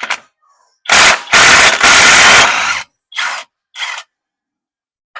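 Pneumatic impact wrench hammering in reverse to loosen a hub assembly bolt: one loud run of about two seconds, then two short bursts.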